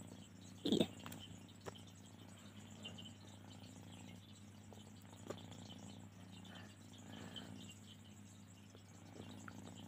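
Cat playing with a cord toy on a fabric sofa: faint rustling and soft pats, with one brief louder sound about a second in, over a steady low hum.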